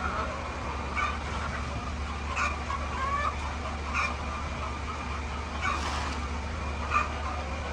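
Hens clucking in short calls, about one every second or so, over a steady low hum.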